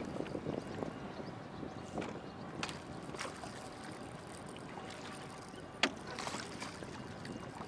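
Water splashing and lapping around a small fishing boat, with scattered light clicks and one sharp knock a little before six seconds in.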